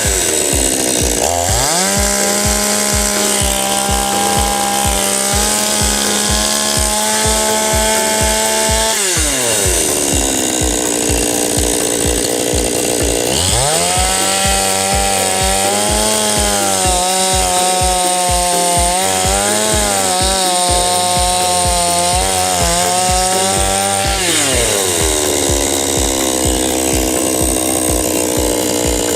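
Petrol two-stroke chainsaw idling, then revved up to high speed twice, each time held for several seconds before dropping back to idle.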